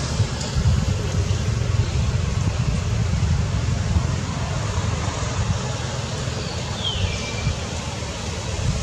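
Steady low outdoor rumble with a hiss over it, with no clear single source; a short falling whistle sounds once about seven seconds in.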